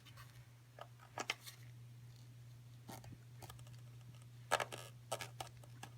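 Scattered faint clicks and scrapes of tongue-and-groove pliers gripping and twisting a stuck plastic PCV valve on a Chrysler 5.7 Hemi, over a steady low hum.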